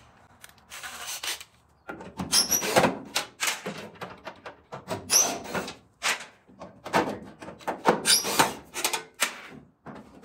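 Irregular knocks, rubs and clatter of hand and cordless-drill work against a pickup's steel roll pan and bed, with a couple of brief high squeaks. The first two seconds are quiet.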